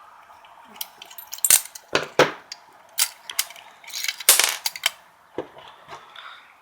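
Irregular sharp clicks and metallic knocks of a heavy metal casing and tools being handled while a small circuit board is pried loose from it, the loudest clustered in the middle.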